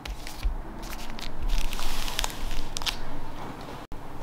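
Foil booster-pack wrappers crinkling and crackling as a stack of trading-card packs is handled, with a few low bumps. The sound breaks off abruptly near the end.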